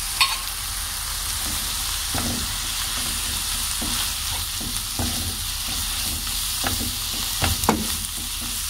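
Sliced onions with green chilli and ginger sizzling in hot oil in a non-stick frying pan, stirred with a wooden spatula that scrapes and knocks against the pan now and then.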